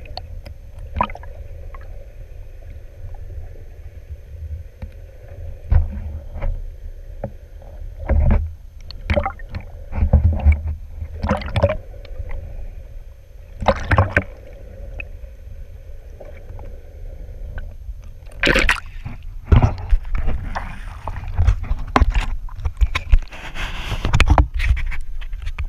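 Muffled underwater sound through a GoPro's waterproof housing: a low rumble with a faint steady hum and scattered sharp clicks and knocks. In the last few seconds splashing and sloshing as the camera breaks the surface.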